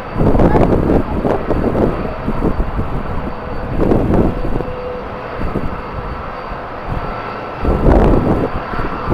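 Jet airliner engines running, with strong gusts of wind buffeting the microphone; the loudest gusts come about a quarter second in and again near the end.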